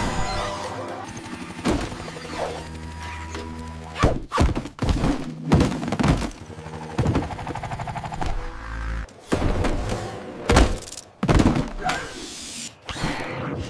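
A run of heavy thuds and knocks, several hits close together from about four seconds in, after a low steady hum in the first few seconds.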